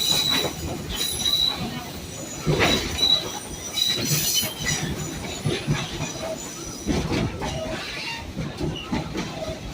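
Passenger train cars rolling along the track, with wheels squealing in short high-pitched bursts several times in the first few seconds over a steady rumble and rattle of the cars.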